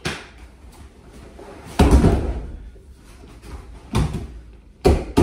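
A person thrown in a jiu-jitsu half-shoulder throw landing on the training mat about two seconds in: a heavy thud and slap of the breakfall. Shorter sharp slaps on the mat follow near the end.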